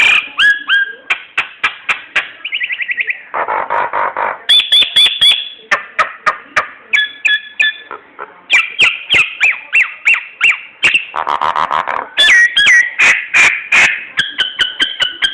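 Jalak nias (a myna-type songbird) singing: a fast, varied song of sharp clicks, chattering and short whistled notes, repeated in quick phrases.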